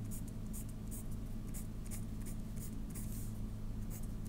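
Pencil scratching on notebook paper in quick short strokes, about three a second, as tick marks are drawn along a graph's axis, over a steady low hum.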